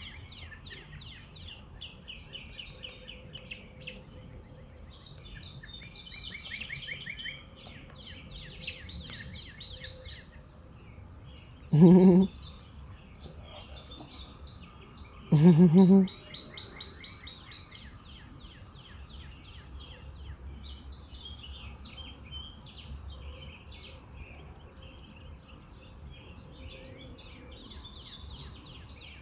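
Small birds chirping and trilling steadily in the background. Twice near the middle comes a short, loud voice sound, about three seconds apart.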